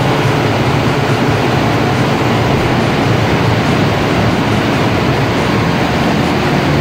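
Large standby generator set's engine running steadily and loudly after a test start on its serviced starter battery, a constant low hum under a broad mechanical noise.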